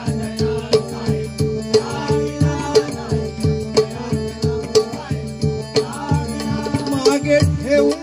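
Bhajan accompaniment: harmonium holding steady notes over hand-drum strokes in a steady rhythm, with an accented cymbal-like click about once a second and a voice gliding in at times.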